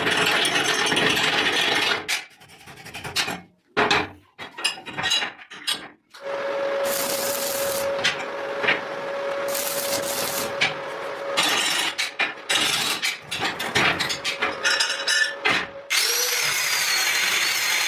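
Workshop tool noise in short cut-together bursts: a power tool runs with a steady whine for a few seconds in the middle, between stretches of scraping and rubbing of tools on work.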